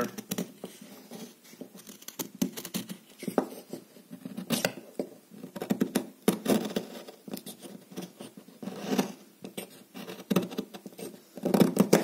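Folding pocket knife blade shaving a wooden stick: a series of short scraping cuts, unevenly spaced, as curls of wood come off.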